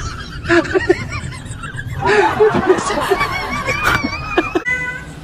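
People laughing in short, repeated snickers, in two bouts, the second rising into a high wavering squeal.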